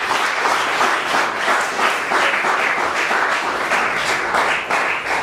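Audience applauding: a burst of many people clapping that starts suddenly and tapers off near the end.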